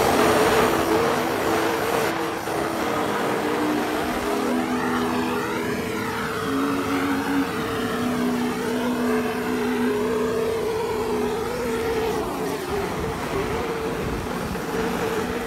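Gas blowtorch flame hissing steadily with a low hum as it sets a chainsaw-carved wooden sculpture alight, the wood catching and burning in big flames; the hiss wavers through the middle.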